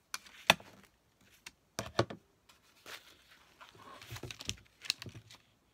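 Craft materials being handled on a desk: several sharp taps and knocks, with paper rustling in between.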